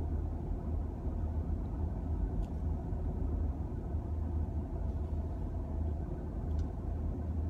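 Steady low rumble inside a car's cabin as the car rolls slowly, under 10 mph.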